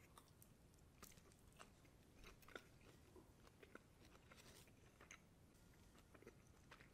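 Faint chewing of a bite of a beef-and-buffalo meat snack stick: a few soft, scattered clicks over near silence.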